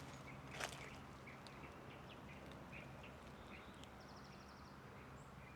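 Faint, scattered bird chirps with one short buzzy trill near the middle, over a low steady hum, and one soft knock about half a second in.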